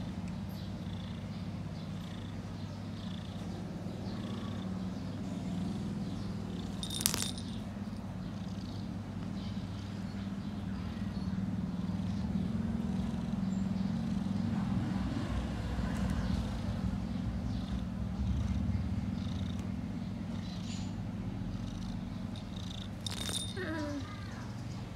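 An orange-and-white kitten purring steadily while its ear is cleaned with a cotton swab. A sharp click about seven seconds in, and another short sharp sound near the end.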